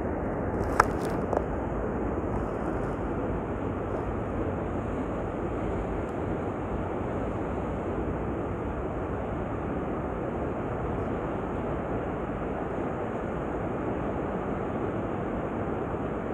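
Steady rush of sea surf breaking along the shore, mixed with wind on the microphone. Two sharp clicks sound about a second in.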